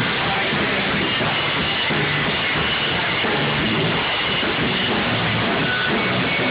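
A rock band playing live in rehearsal: a drum kit with a bass line stepping between low notes, in a dense, loud, steady wall of sound.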